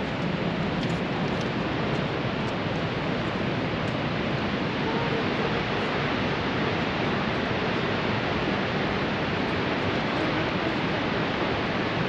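Steady rush of falling water from a waterfall, an even, unbroken noise that does not change.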